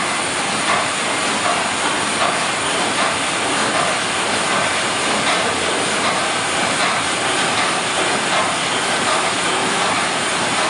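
ST Cervia's steam engine running steadily at speed: a loud, even mechanical noise and hiss with no distinct beat.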